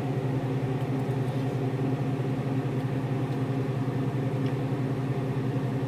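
Steady low hum of a running kitchen appliance's fan or motor.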